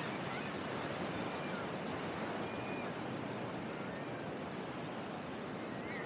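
Ocean surf washing onto the beach: a steady, even hiss of waves, with faint short high chirps now and then.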